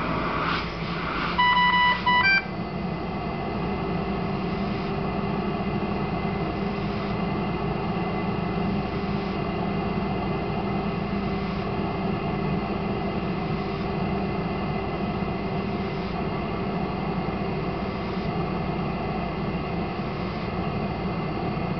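Dräger Savina ICU ventilator running with a steady hum, a faint puff of airflow about every two seconds as it delivers each machine breath. About a second and a half in it sounds a short sequence of loud alarm beeps, a low tone then higher ones, with its apnoea alarm active.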